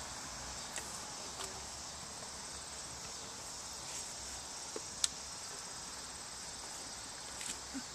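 A steady high-pitched chorus of insects, with a few faint clicks and one sharp click about five seconds in.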